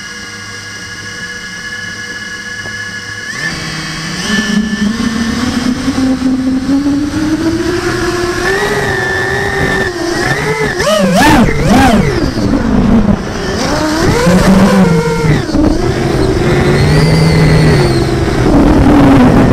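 Multirotor drone's electric motors and DAL 6045 tri-blade propellers, heard from the craft's own camera. Steady tones at first, then about three seconds in the motors spin up into a rising whine for takeoff. The pitch then swings up and down with the throttle as it flies.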